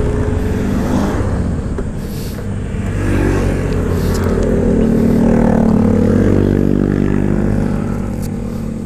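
Motorcycle engine running under way, revving up from about three seconds in and easing off near the end.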